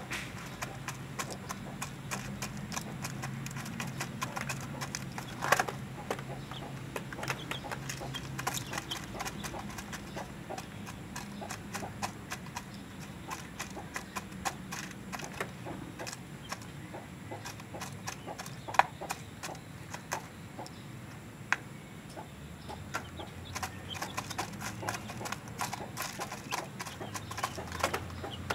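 Young featherless (trondol) chickens pecking at grain in a plastic bottle feeder and stepping on the plastic cage tray: irregular clicks and taps with a few louder knocks.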